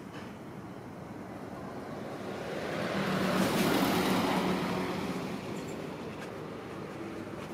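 A motor vehicle passing by: engine and road noise swell up over a couple of seconds, peak in the middle, then fade away, over steady background noise.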